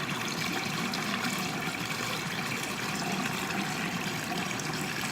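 Hot water running steadily from a tap into a bathroom sink.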